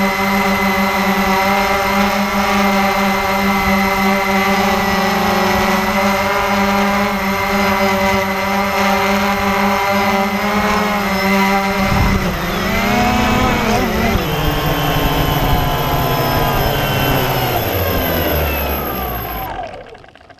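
Cheerson CX-20 quadcopter's brushless motors and propellers running with a steady hum, heard from the drone's own camera. About twelve seconds in, the pitch wavers up and down with throttle changes. Then the motors wind down in falling pitch and stop near the end as the drone comes down in the grass.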